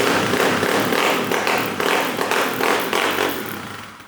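Kawasaki KLX140's single-cylinder four-stroke engine, breathing through a full Pro Circuit aftermarket exhaust, revved in quick repeated blips about twice a second, then dying away near the end.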